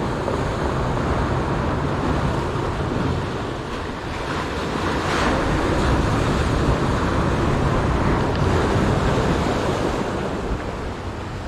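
Ocean surf breaking and washing among shoreline boulders and cobbles, a steady rush that swells louder about halfway through, with wind on the microphone.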